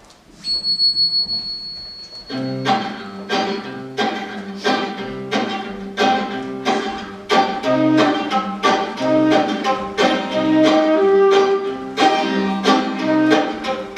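Instrumental background music on strings, violin and cello playing short, quick repeated notes. It comes in about two seconds in, after a quiet start.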